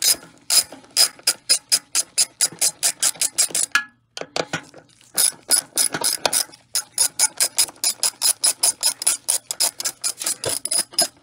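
Ratchet wrench with a 10 mm socket on a long extension clicking rapidly as it backs out the bolts holding the motorcycle's fuel tank. About four or five sharp clicks a second, with short breaks about four seconds in and again a couple of seconds later.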